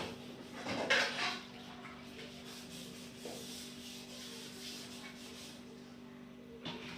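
Rubbing and scrubbing strokes of kitchen cleaning, strongest in the first second or so, then quieter, with a steady low hum underneath.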